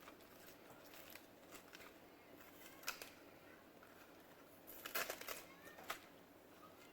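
Quiet mukbang eating sounds: a person chewing grilled chicken and lettuce, with a few short crisp clicks and crunches, a small cluster of them about five seconds in.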